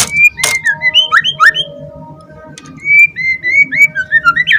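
White-rumped shama (murai batu) singing two phrases of loud, sliding whistled notes, with a sharp click about half a second in.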